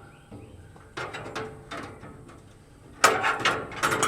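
Metal clanks and scrapes of a sawmill's band blade being handled and fitted over its wheels, with a single knock about a second in and a louder run of clatter about three seconds in.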